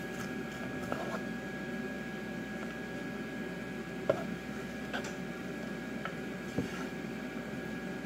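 Sliced onion frying in butter in a nonstick pan, sizzling steadily, with a few light clicks and knocks of a wooden spatula stirring it, the sharpest about four seconds in. A faint steady high tone runs underneath.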